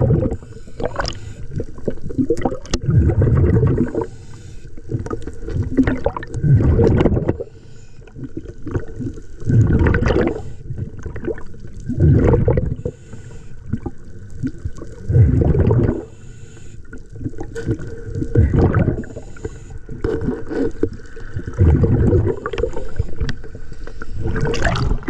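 Scuba diver breathing through a regulator underwater: each exhalation releases a burst of bubbles that rumbles and gurgles, about every three seconds.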